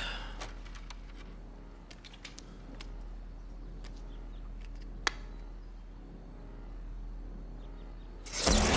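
Low steady hum with a few faint ticks and a sharp click about five seconds in. Near the end, a sudden loud electric crackling sound effect starts together with music as the EEG machine fires.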